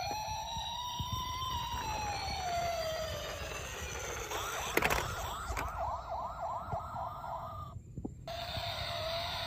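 Toy police car's electronic siren: a slow wail rising and falling, switching about halfway through to a fast yelping warble of about three cycles a second, then cutting out briefly near the end before the wail starts again.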